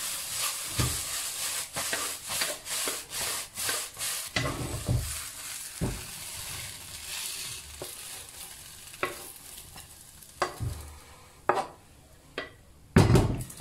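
A wooden spatula scrapes and stirs crisp-fried egg and scallion pancake pieces in a wok while the oil still sizzles, with a rapid run of scraping strokes at first. The sizzle thins as the pieces are scraped out onto a plate, with scattered knocks of the spatula against the wok and one loud knock near the end.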